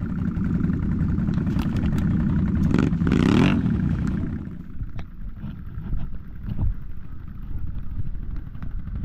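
ATV engine running hard under throttle, with a short rushing burst about three seconds in, then lower, uneven running with scattered knocks and clatter.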